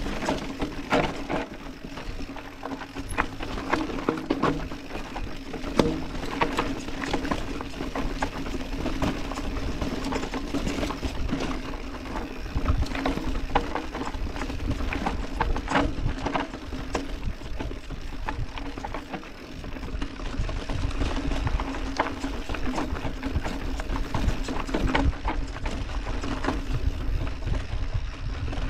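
Orbea Occam full-suspension mountain bike clattering and rattling over a rough, rooty dirt trail on a descent, with frequent sharp knocks from the frame, chain and suspension over a steady hum. Low wind rumble on the camera microphone grows in the second half as the speed picks up.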